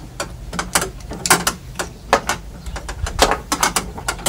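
Irregular metallic clicks and rattles of a Holden Commodore VE door key lock cylinder and its thin linkage rod being handled and turned in the hands.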